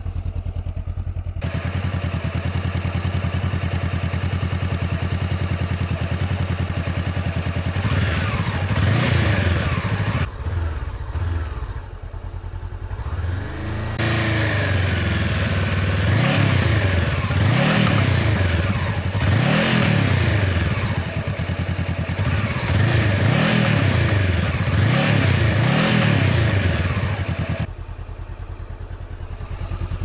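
Honda CB500F's parallel-twin engine through its stock exhaust, warmed up and running stationary: idling steadily, then blipped a few times about eight seconds in, and about halfway through revved in a run of about eight quick rises and falls before dropping back to idle near the end.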